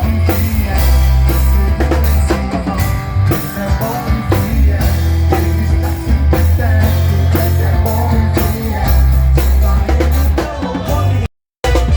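A live band playing, with a drum kit keeping a steady beat over a heavy bass line. Near the end the sound cuts out completely for a fraction of a second, then comes back.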